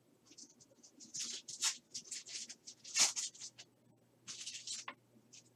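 Foil wrapper of a trading-card pack crinkling and tearing as it is ripped open: a run of crackly rustles with a sharper snap about three seconds in.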